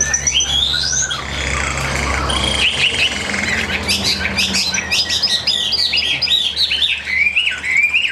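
Chinese hwamei singing and chirping, several birds at once: rapid, overlapping whistled notes that slide up and down. A low hum fades out about a third of the way in.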